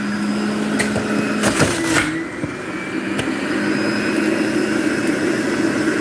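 Breville centrifugal juicer running at its top speed, a steady motor hum, with a few knocks in the first two seconds and a shift in its tone about two seconds in.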